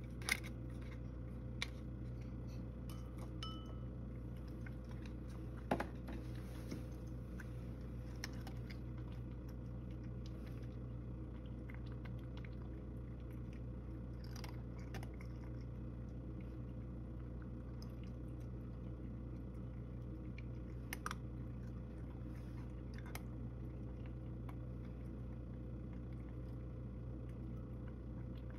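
A spoon clinks against a cat food can and a ceramic bowl in a few sharp clicks during the first six seconds as food is served. After that, a cat eats from the bowl, with soft chewing and occasional faint ticks over a steady low hum.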